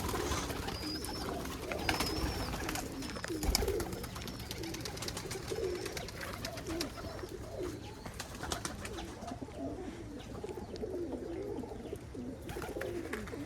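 Several domestic pigeons cooing at once, their wavering calls overlapping continuously, with a few light clicks among them.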